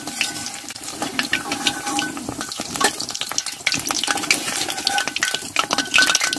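Batter-coated capsicum bajji deep-frying in hot oil in a kadai, with a steady sizzle full of small crackling pops, cooking slowly on a low flame. A perforated metal skimmer stirs them through the oil and lifts them out.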